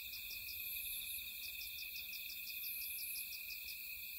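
Crickets and other night insects chirping: a steady high trill with a faster chirping of about five pulses a second above it.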